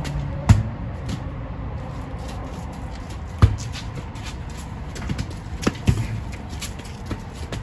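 A volleyball being struck and played back and forth: sharp slaps of the ball off forearms and hands, loudest about half a second in and about three and a half seconds in, with smaller hits later. A steady low background hum runs underneath.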